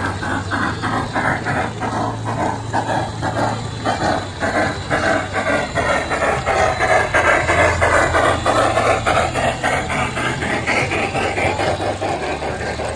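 G-scale model steam locomotive and its freight cars running along the track over a trestle, with a steady rhythmic beat and a low hum underneath. It grows louder as the train passes close, about halfway through, then eases off.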